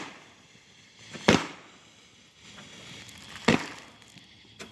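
Fireworks going off: two sharp bangs about two seconds apart, then a fainter pop near the end.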